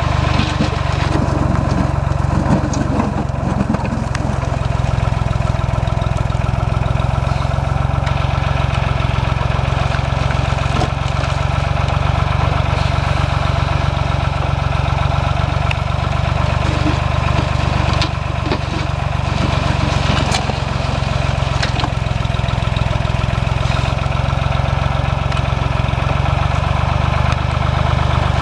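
Small Ford tractor's engine running steadily, powering a three-point-hitch backhoe, with a few short knocks scattered through it.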